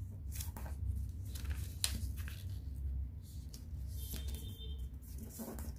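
Square of origami colour paper rustling and crackling in short scattered bursts as it is folded and pressed into creases by hand, over a low steady hum.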